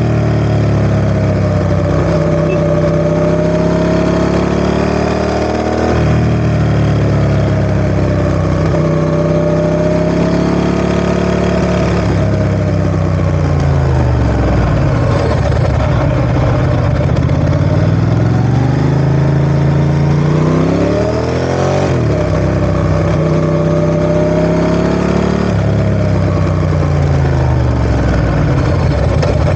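Ducati ST4S motorcycle's 996 cc Testastretta 90° V-twin running. Its note falls and rises over several seconds at a time as the revs change, with sudden jumps in pitch about six seconds in and again near twenty-two seconds.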